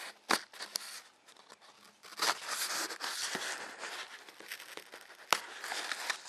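A cardboard shipping box being cut and torn open with a knife. There are a few sharp clicks near the start, then about four seconds of scraping and tearing from the middle on, with another sharp click near the end.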